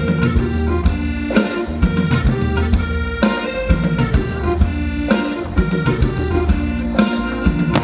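Live Thai ramwong band music, an instrumental passage with sustained melody over a steady drum beat.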